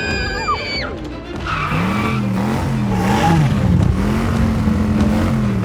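A car's engine revving up and down and tyres skidding as it pulls up, over background music.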